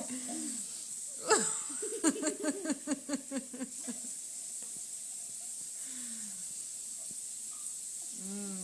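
A person's voice making a quick run of short, evenly spaced pitched pulses about two seconds in, and a brief vocal sound near the end. A steady high hiss runs underneath.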